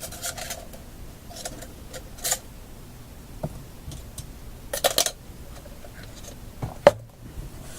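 Small items handled on a workbench: scattered rustles and light clicks, with a sharp click near the end.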